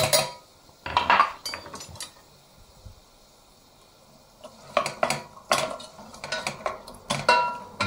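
Kitchen utensils knocking and clinking against a pan and dishes. A couple of knocks come about a second in, then a pause, then a run of clinks and scrapes in the second half, some of them ringing briefly.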